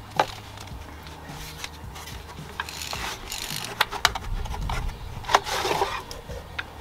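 Cardboard box being handled as a plastic Pentair IntelliChlor salt cell is slid out of it: rubbing and scraping of cardboard with a few sharp knocks and cracks.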